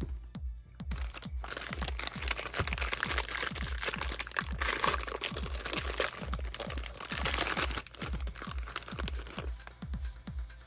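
Foil wrapper of a baseball card pack being torn open and crinkled, starting about a second and a half in and stopping near the end. Background music with a steady beat plays throughout.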